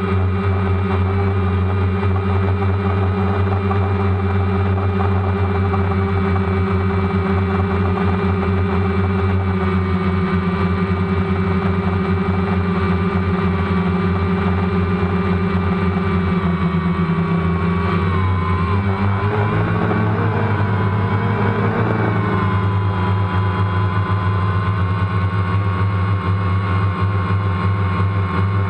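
DJI Phantom quadcopter's electric motors and propellers running steadily, heard close up from the drone's own camera. About two-thirds of the way through, the pitches waver and shift for a few seconds as the motor speeds change, then settle a little lower.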